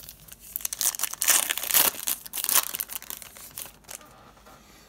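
A trading-card pack's wrapper being torn open and crinkled by hand: a dense crackling that starts about a second in and dies away near the end.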